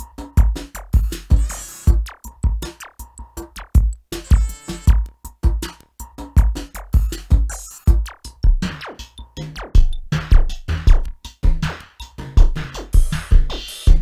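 Electronic music made on an M-Audio Venom synthesizer: a busy drum-machine beat with a deep kick, under a held synth tone.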